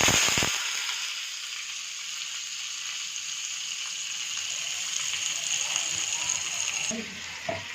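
Half a cup of water poured into a hot oil tempering of mustard seeds, curry leaves and green chillies: a loud sizzle as the water hits, dying down within the first half-second into a steady sizzling hiss. A short knock near the end.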